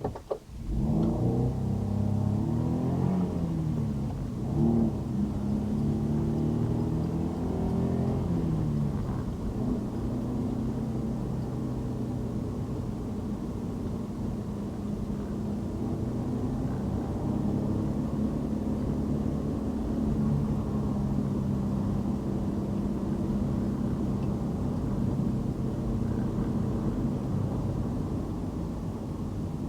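Car engine pulling away, its pitch climbing and dropping back in steps through the gear changes for the first several seconds, then running steadily at cruising speed with road noise.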